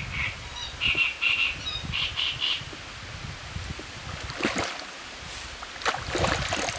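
A bird gives a quick run of short, high squawking calls in the first half. Later a hooked common carp (sazan) thrashes and splashes at the surface beside the boat, twice, the second and loudest time near the end.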